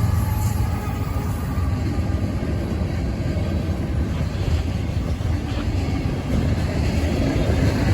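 Freight train running past between horn blasts: a steady, loud low rumble of locomotive engines and rolling cars, with no horn sounding.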